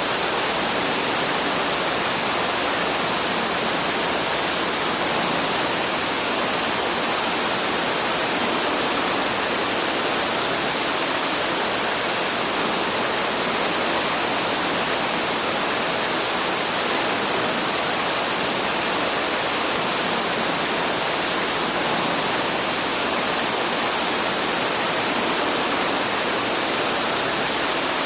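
Waterfall: a steady, unbroken rush of falling water, even and hissy, without bird calls standing out.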